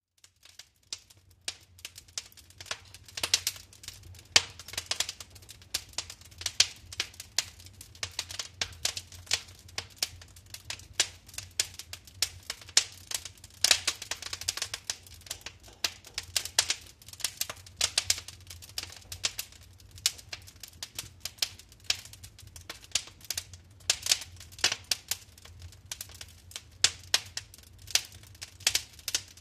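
Wood fire burning in a fireplace, crackling with frequent irregular sharp pops and snaps, over a faint low steady hum.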